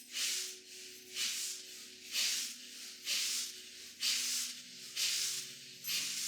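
Forceful rhythmic pranayama breathing, rushes of air about once a second, during a 30-breath round. A soft background music drone holds underneath.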